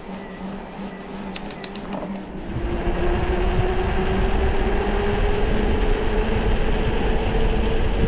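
Specialized Levo electric mountain bike being ridden: a few quick clicks, then about two and a half seconds in a loud rumble of tyres and wind sets in under a motor whine that rises slowly in pitch.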